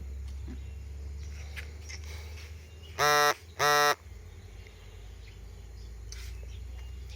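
Two short, flat-pitched buzzes about half a second apart, roughly three seconds in, over a low steady hum.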